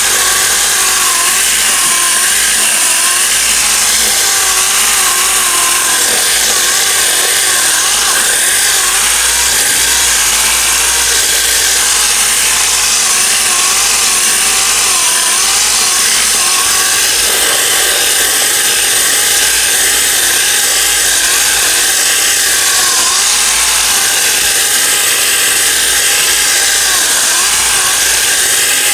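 8-inch orbital sander with 40-grit paper running steadily against cured short-strand fibreglass body filler, a wavering whine over the grinding hiss of the paper.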